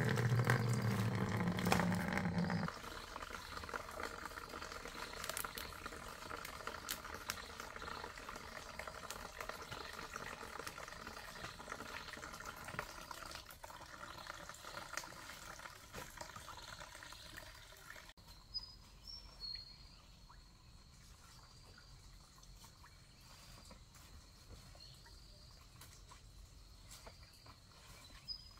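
Water pouring from a bamboo-pipe spout into a plastic basin. It is loud and filling for the first two or three seconds, then settles to a quieter steady trickle that fades further about two-thirds of the way in.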